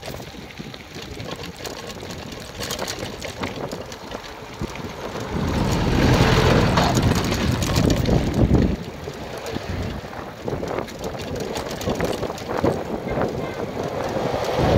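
Wind rushing over the microphone of a bicycle-mounted camera as the bike rolls along a dirt and gravel road, with heavy low buffeting from about five seconds in. Near the end an oncoming pickup truck passes close by.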